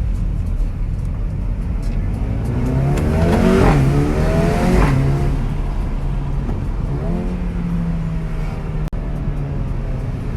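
Mercedes-AMG CLA 35's turbocharged four-cylinder engine revving: the exhaust note climbs to a loud peak about three and a half seconds in and drops back, then rises again and holds steady. A few sharp crackles from the exhaust come in the first few seconds.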